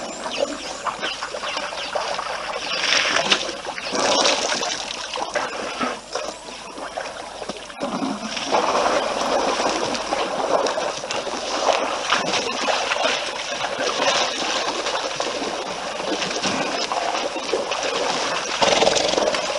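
African elephants drinking and wading at a waterhole: irregular splashing and trickling water with small knocks, swelling and fading.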